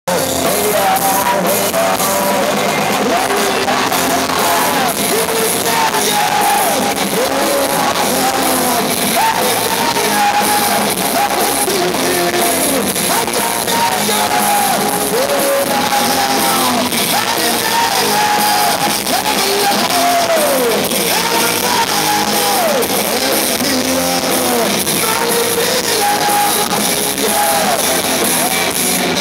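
Rock band playing live through a concert PA, heard from in the audience: electric guitars and drums driving under a sung lead vocal.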